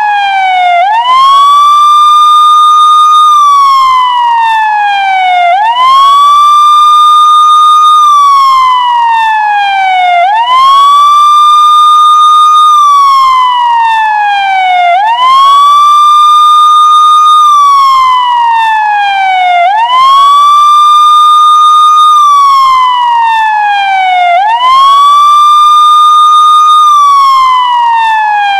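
Wailing siren, sweeping up quickly to a high pitch, holding it for about two seconds, then gliding slowly down, over and over about every four to five seconds.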